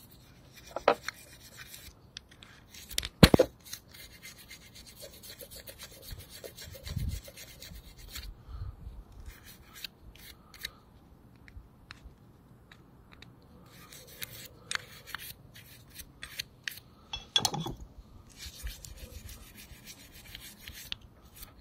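Toothbrush scrubbing grime off a motorcycle brake caliper and its pistons in short, irregular strokes, with a couple of louder knocks from the caliper being handled, about three seconds in and again near the end.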